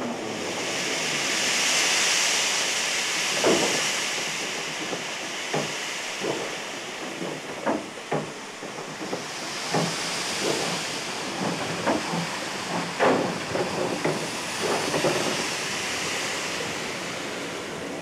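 Steam locomotive hissing steam, with irregular metallic clanks and knocks from its running gear from a few seconds in.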